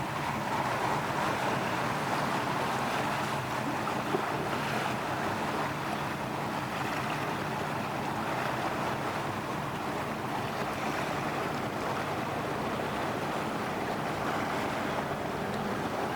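A boat's engine droning steadily, with the rush of water and wind noise on the microphone.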